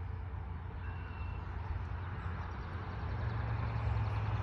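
Fairway mower engine running steadily, a low hum that gets a little louder about three seconds in.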